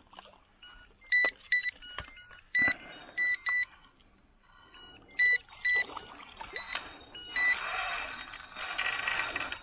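Electronic carp bite alarms on a rod pod giving short, high single beeps in quick clusters as the lines are pulled by a hooked fish being played in. Near the end comes a couple of seconds of water splashing as the fish thrashes by the landing net.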